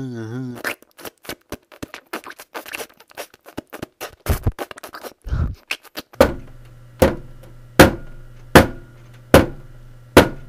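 Quick, irregular mouth clicks and smacks for about six seconds. Then come loud, evenly spaced knocks, a little more than one a second, over a low steady hum.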